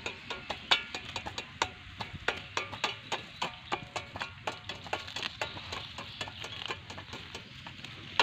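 Plastic mulch film crackling and snapping in irregular sharp clicks, a few a second, as it is worked during mulch hole-punching.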